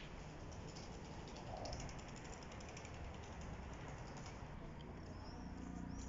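Faint outdoor railway-platform ambience: a low, steady rumble with a quick run of light clicks about two seconds in.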